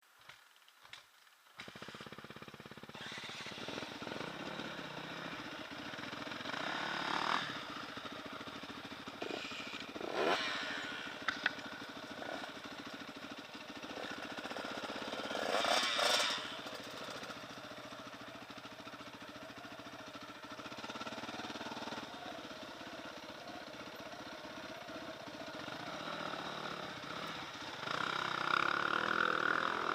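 Motorcycle engine running steadily, swelling louder several times, with a few clicks in the near silence before it starts.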